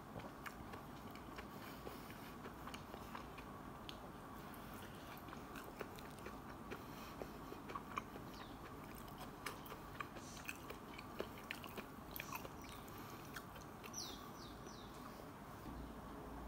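Faint sounds of someone biting and chewing a soft, saucy burger: wet mouth noises and many small scattered clicks over a low steady hiss.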